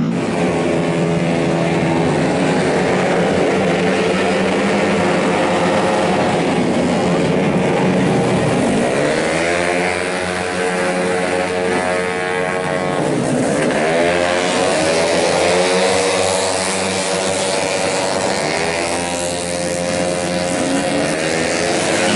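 Several tuned 131cc racing automatic scooters running at high revs, their engine notes overlapping. The pitch dips and climbs again about nine and thirteen seconds in as the bikes pass and brake or accelerate.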